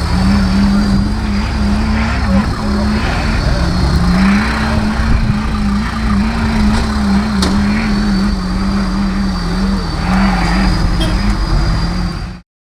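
Off-road prototype 4x4's engine running at steady revs with a droning note that wavers slightly in pitch. It cuts off abruptly near the end.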